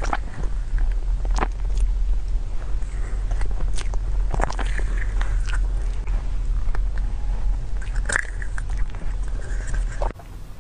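Close-miked eating sounds: wet smacking and chewing of a soft chocolate dessert spooned from a plastic cup, with scattered sharp clicks of the spoon and mouth, over a steady low hum that cuts off near the end.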